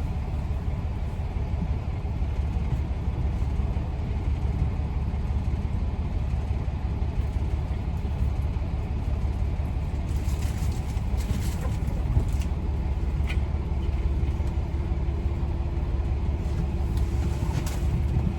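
Steady low rumble of a semi-truck's engine heard inside the cab, with a few light clicks and rustles about two-thirds of the way through.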